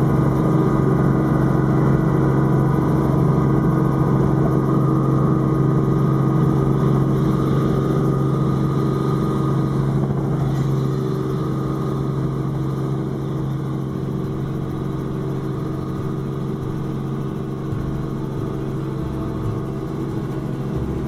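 Light helicopter's engine and rotors running steadily, heard from inside the cabin as it lifts off and climbs away. The drone eases off slightly about halfway through.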